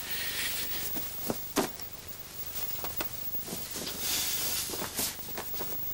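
Steady hiss with a few short knocks and soft rustles.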